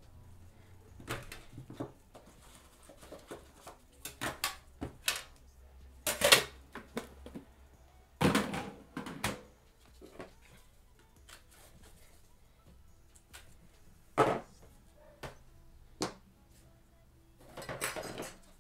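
Gloved hands handling trading-card boxes: a scattered series of knocks, clacks and short scrapes as the boxes are picked up, turned and set down on a playmat, the loudest knock about six seconds in and a cluster of handling noise near the end.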